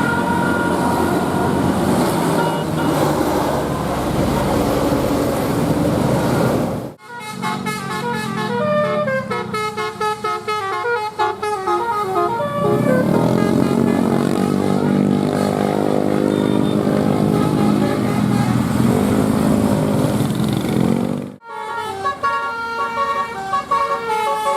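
Bus 'telolet' multi-tone air horns playing quick stepped melodies and swooping tones over a bus engine. The sound cuts off abruptly twice and starts again.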